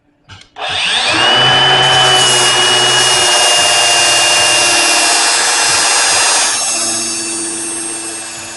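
A grinder motor starts with a rising whine about half a second in, then runs loudly with a harsh grinding noise as the steel flatter is ground. The grinding eases somewhat near the end while the motor keeps running.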